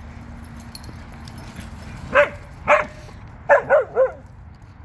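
A dog barking five times: two single barks about half a second apart, then a quick run of three.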